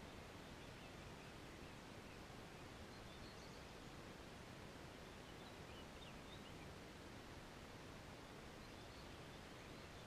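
Near silence: a steady faint hiss of the outdoor air, with a few faint, high bird chirps about three seconds in, around six seconds, and near the end.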